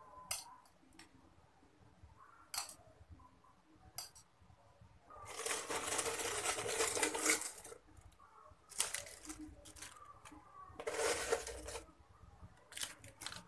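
Dry emping melinjo crackers rattling and rustling in a plastic jar as a hand scoops them out, in one long noisy stretch in the middle and two shorter ones after it. There are a few sharp clicks before and near the end.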